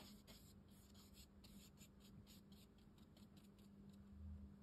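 Faint scratching of a watercolour brush working over rough Khadi cotton rag paper in short, irregular strokes, a few a second, over a steady low hum.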